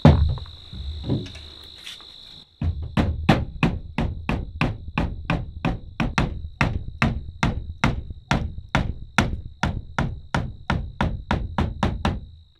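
Wooden baton striking the spine of a knife, driving the blade down through a green sapling to split it. After a couple of knocks, the strikes come steadily about three a second from about two and a half seconds in, over a steady high insect buzz.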